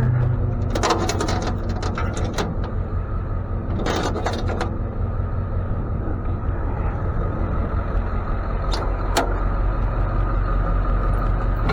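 Tow truck engine running steadily with a low rumble, with a few brief clattering knocks about one, four and nine seconds in.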